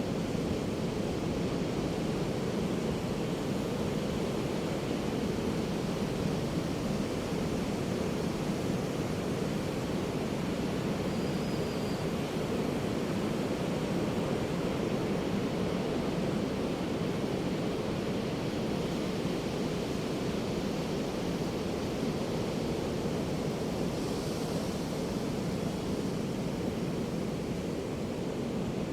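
Ocean surf breaking on a beach, a steady deep wash of waves with no distinct gaps between them.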